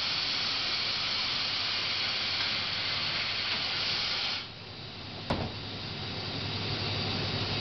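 Hitachi HiCell CH250 CNC turning centre during a part transfer between spindles: a steady hiss that cuts off about four and a half seconds in, a single sharp clack about a second later, then a low steady machine hum.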